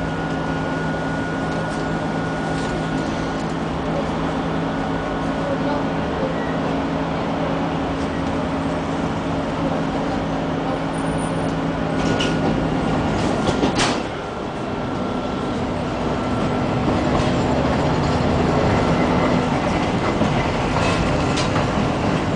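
Electric tram heard from inside, running slowly over the track, with a steady motor hum and whine. A few sharp clicks of the wheels over rail joints and points come around the middle, and the running noise grows louder in the second half.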